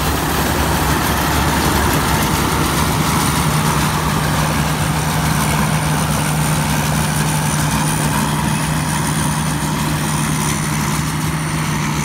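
A tracked rice combine harvester with a Hino 195 turbo diesel engine runs steadily under load while cutting and threshing rice. It gives a constant low drone with a thin high whine over it, fading slightly near the end as it moves away.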